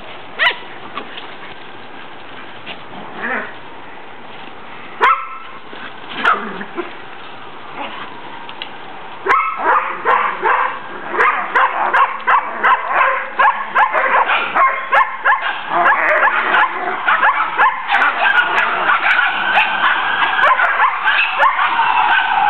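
Collies and collie puppies barking and yipping in play. A few scattered barks come first; then, about nine seconds in, a rapid, continuous run of barks and high yips begins, joined near the end by drawn-out whining cries.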